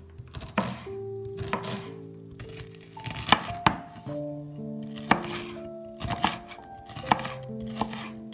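Chef's knife dicing a white onion on a wooden cutting board: sharp knocks of the blade striking the board at an uneven pace, about once or twice a second, over soft background music with held notes.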